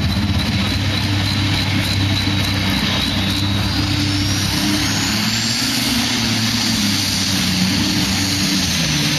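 Competition pulling tractor's diesel engine running hard and loud, with a high turbo whistle that climbs about three and a half seconds in and falls away near the end.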